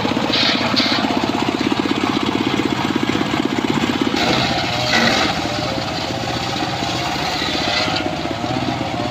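Circular saw rig running with a fast, even engine-like pulsing; a higher hiss rises several times as the blade cuts through wood.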